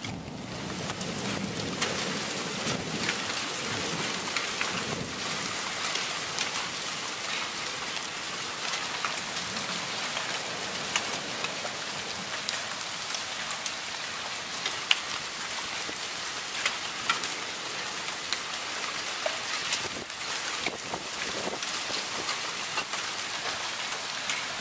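Heavy thunderstorm rain pouring down steadily, with many sharp ticks of drops striking nearby surfaces. A low thunder rumble in the first few seconds fades away.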